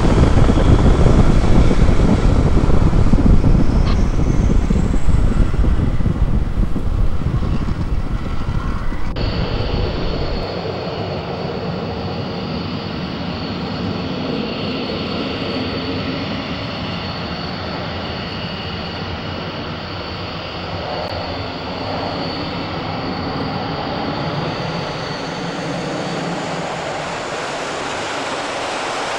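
Panavia Tornado's twin RB199 jet engines running in full afterburner on take-off: a very loud, deep rumble for the first nine or ten seconds. After a cut, a steadier, quieter jet roar follows with a high whine over it.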